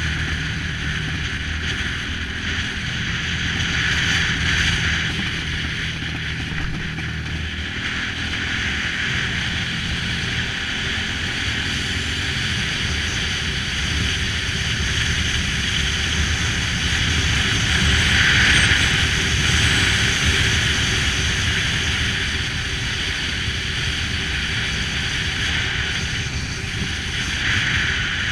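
Motorcycle engine running steadily on the move, with wind rushing over the microphone. The wind swells about four seconds in and again past the middle.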